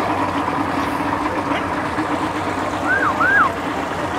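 Vehicle engines running steadily with a low hum. About three seconds in come two short siren whoops, each rising and then dropping in pitch.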